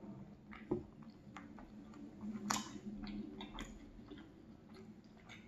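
A person chewing a mouthful of plain croissant: a run of soft, scattered mouth clicks, with two sharper clicks, one about three-quarters of a second in and one about two and a half seconds in.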